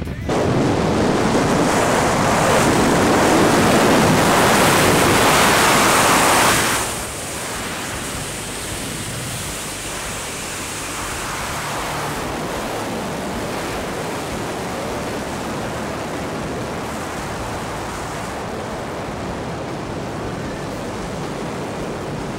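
Wind rushing over the camera's microphone during a parachute descent under canopy. A loud steady rush for about the first seven seconds drops suddenly to a softer steady rush for the rest.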